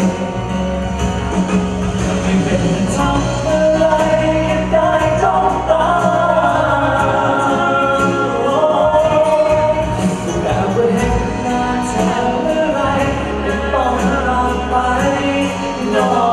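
A male singer singing live into a handheld microphone over backing music, holding long notes.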